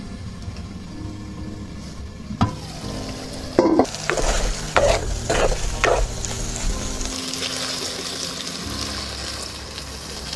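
Food sizzling in a hot pan as it is stirred, with a spatula knocking against the pan about five times between two and a half and six seconds in. The sizzling starts about three and a half seconds in and keeps going.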